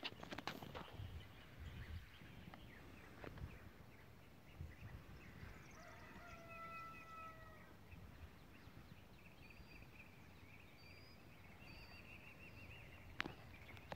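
Faint outdoor ambience with small birds chirping and twittering through the second half. One drawn-out animal call with a steady pitch comes about six seconds in and lasts about a second and a half.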